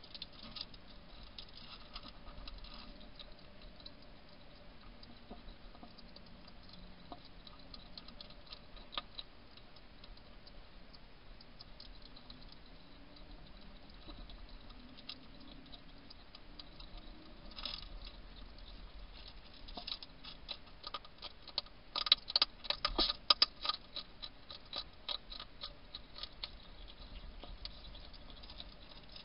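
European hedgehog crunching dry pellet food from a dish: a run of small crisp clicks and crunches. The crunching comes loudest and densest about three-quarters of the way in.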